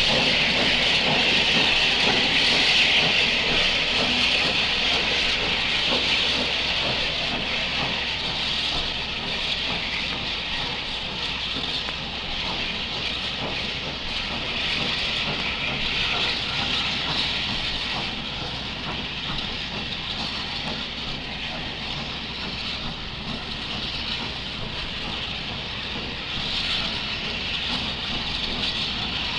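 Steam locomotive letting off steam: a steady hiss, louder in the first few seconds and swelling again near the end.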